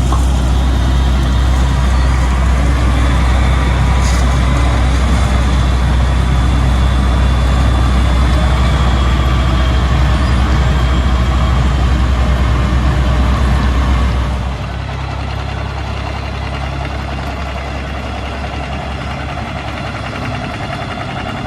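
Heavy roadworks machinery engines running steadily with a loud low rumble. About fourteen seconds in, the rumble drops away and a quieter steady engine noise carries on.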